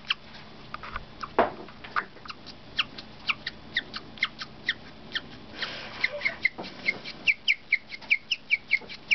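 Guinea pig chirping: a long, bird-like run of short, high, downward-sliding chirps that settles into a steady rhythm of about three a second.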